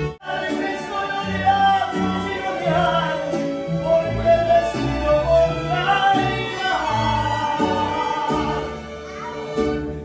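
Live mariachi band playing, with stringed instruments over steady low bass notes and a voice singing the melody; the music eases off near the end.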